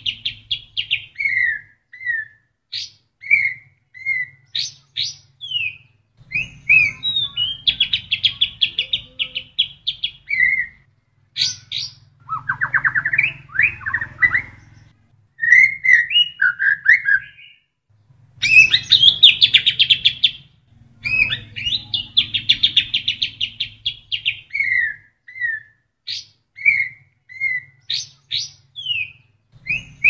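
White-rumped shama (murai batu) singing a varied song: long bursts of rapid, buzzy trills alternate with short, sharp whistled notes and brief pauses. The song is filled with the fast trilled phrases of the kapas tembak bulbul, which the shama has learned.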